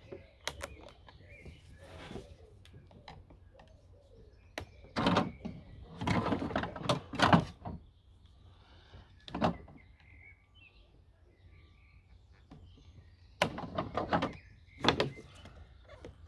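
Small flat-blade screwdriver prying at the plastic tabs that hold a Dyson DC04's motor in place: scattered clicks, scrapes and knocks of metal on plastic, in clusters about five to seven seconds in and again near the end. The tabs are a bit stiff.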